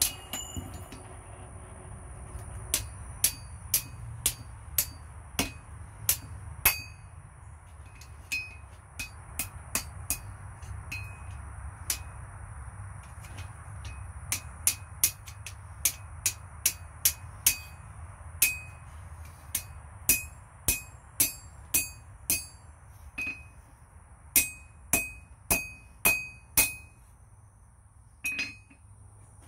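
Hand hammer striking a red-hot steel bar on an anvil: dozens of ringing blows in runs of about one to two a second, with short pauses between runs.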